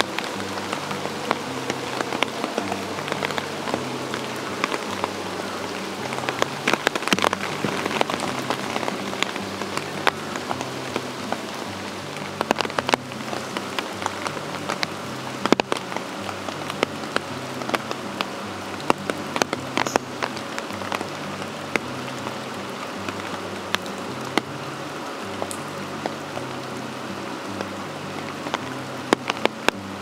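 Steady rain pattering, with many separate drop hits, over quiet background music that carries a repeating bass line.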